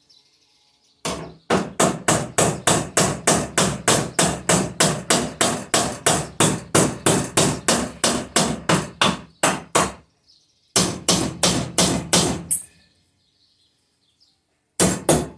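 Small hammer tapping a wheelbarrow axle rod through the wheel hub. It strikes about three times a second for several seconds, pauses, gives a shorter run of blows, then two more near the end.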